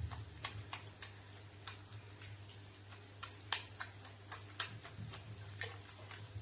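Faint, irregular light clicks and drips of water, one or two a second, as a cat paws at foamy bathwater, over a steady low hum.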